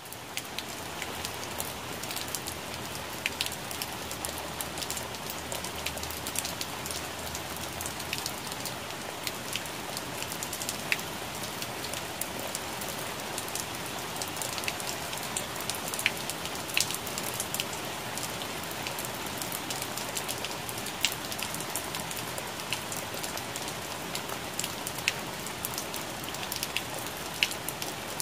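Steady rain falling on plant leaves: a continuous hiss of rainfall with frequent sharp, separate drop ticks scattered through it.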